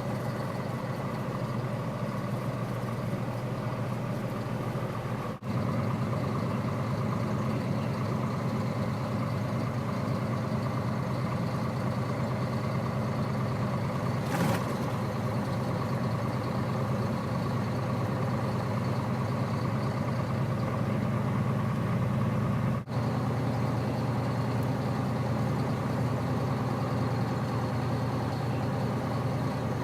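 Steady drone of a semi-truck's diesel engine and road noise heard inside the cab while driving, with one short knock about halfway through.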